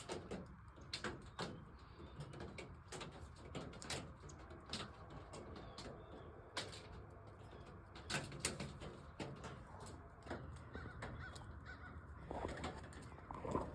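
Crows cawing, among many scattered sharp clicks and ticks over a steady low rumble; the harshest calls come near the end.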